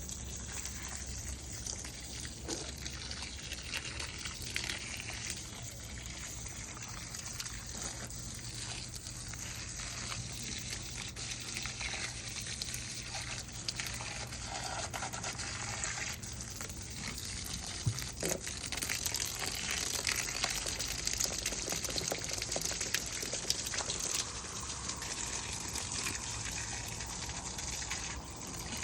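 Water spraying steadily onto garden plants and soil during watering, getting a little louder about two-thirds of the way through.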